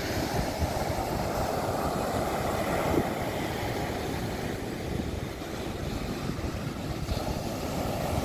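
Small ocean waves breaking and washing up on a sandy beach, with wind buffeting the microphone. A brief thump about three seconds in.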